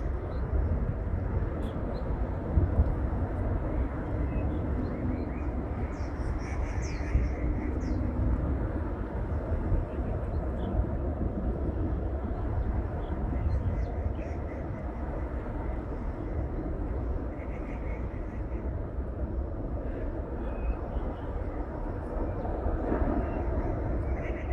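Outdoor ambience: a steady low background rumble with scattered short bird chirps over it, a cluster of them about six to eight seconds in and a few more near the end.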